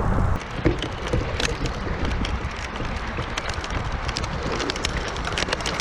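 Rain shower hitting the kayak and gear: many scattered sharp taps of drops over a steady hiss, with wind rumbling on the microphone.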